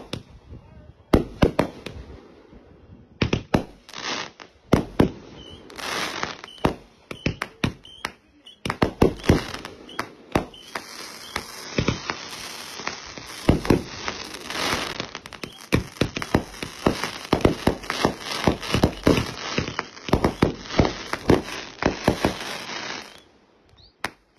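Consumer fireworks going off: scattered sharp bangs and pops that thicken about eight seconds in into a dense, rapid crackle, which stops abruptly near the end.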